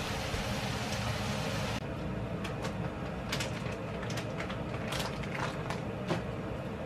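Vegetables cooking in a stainless steel frying pan over a low steady hum: a steady sizzling hiss, then about two seconds in a quieter hiss with scattered crackles and pops.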